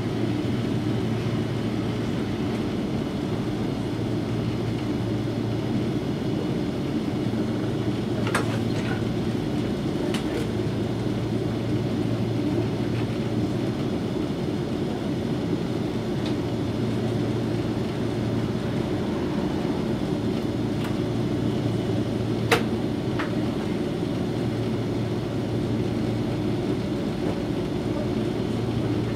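Cabin of a standing Toyohashi Railway 3500-series tram: a steady low hum from the car's onboard equipment, swelling and easing every few seconds, with a few short clicks, the sharpest about two-thirds of the way through.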